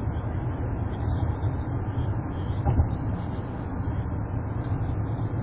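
Steady low rumble of road and engine noise inside a Hyundai Santa Fe's cabin, cruising at about 85 km/h.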